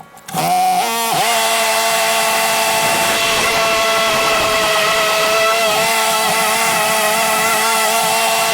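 Gas walk-behind lawn mower engine catching and climbing in pitch within the first second, then running steadily at high speed.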